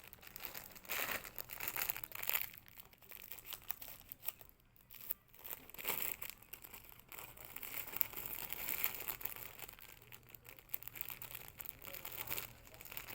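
Plastic bag crinkling and rustling in irregular bursts as it is handled.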